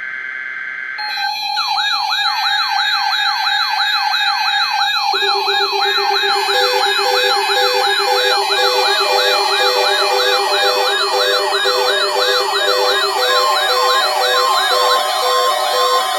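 Layered electronic siren and alarm tones. A steady tone, then from about a second in several sirens wail up and down about twice a second over a faster, higher warble; a low steady tone joins near five seconds and beeping tones after that. The wailing drops out near the end while the tones keep sounding.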